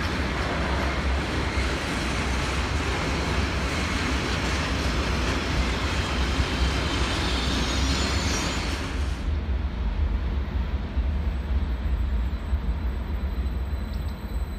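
Electric multiple unit train pulling slowly into the station, a steady rumble and hiss of wheels and running gear. A faint high squeal comes in the middle, and the hiss eases at about nine seconds, leaving a thin high whine.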